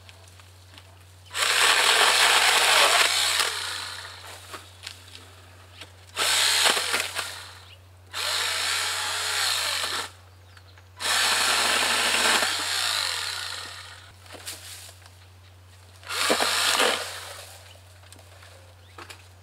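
Greenworks 40V cordless electric 8-inch pole saw running in five bursts of a second or two, each winding down when the trigger is released, as the chain cuts into dead queen palm fronds overhead.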